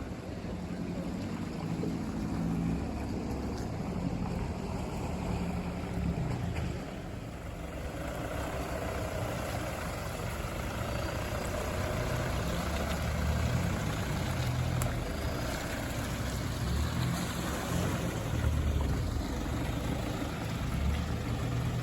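Four-wheel-drive vehicle's engine running at low revs as it moves slowly along a muddy track.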